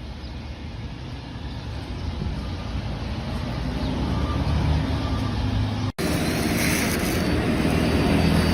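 A steady low machine rumble that grows gradually louder. It cuts out for an instant about six seconds in, then carries on.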